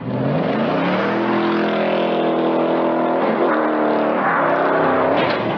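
Ford Mustang engine revving hard under full acceleration. The pitch climbs and holds high, dips about three and a half seconds in, then climbs and dips once more near the end.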